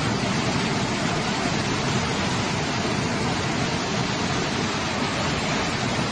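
Fast floodwater rushing down a street as a torrent, a loud, steady, even rush of water.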